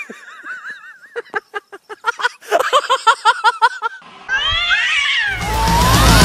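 Cats yowling in a standoff: a wavering call, then a quick run of short rising cries, then long rising-and-falling caterwauls. Loud rock music starts just over five seconds in.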